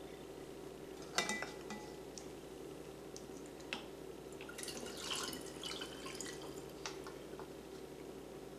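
Lamp oil dripping and trickling through a small funnel into a plastic soda bottle. A sharp plastic click comes about a second in, and light ticks and taps of handling follow a little past the middle.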